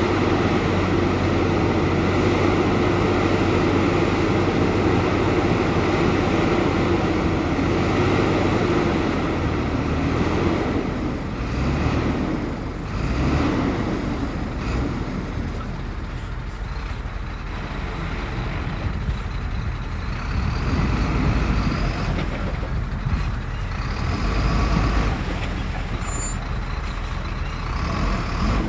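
Heavy diesel earthmoving machinery running under load: a steady engine drone for the first several seconds, then rising and falling as the machines work.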